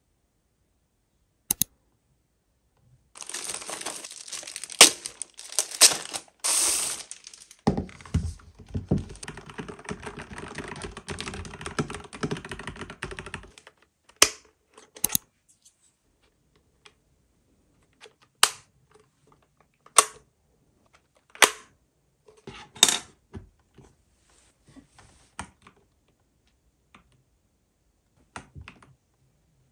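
Packaging being handled: a dense crinkling and rustling lasts about ten seconds, then a string of separate sharp clicks and taps, one every second or two.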